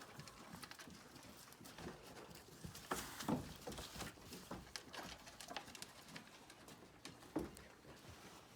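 Faint scattered knocks, scuffs and taps of farm animals moving about and feeding in a barn pen, with a louder knock about three seconds in and another near the end.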